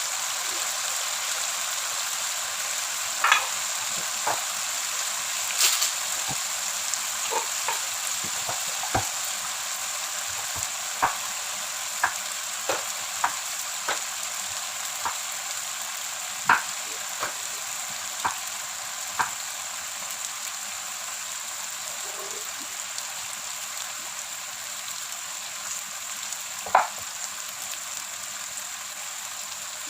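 Shallots and garlic frying in hot oil in a pan: a steady sizzle, with scattered sharp clicks as they are stirred.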